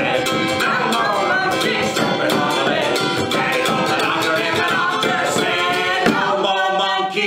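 Live children's song: a strummed ukulele and a hand-played frame drum accompanying a man singing, with a bouncy, steady rhythm.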